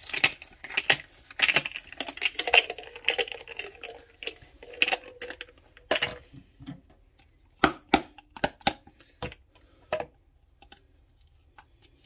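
Cloth towel rubbing against a glass hummingbird feeder bottle as it is dried, with rapid clinking clicks, then from about halfway a string of separate sharp clicks and knocks as the hard feeder parts are handled; the clicks stop about two seconds before the end.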